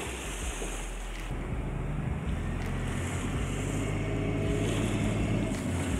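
Diesel tractor engine labouring under heavy load as it tows a fishing boat on a trailer across the sand, its steady low note firming up about a second in. Wind buffets the microphone.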